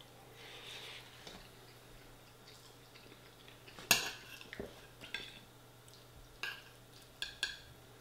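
Metal spoon clinking and scraping against a white ceramic bowl while scooping chilli con carne and rice. A sharp clink about four seconds in is the loudest, followed by several lighter clinks over the next few seconds.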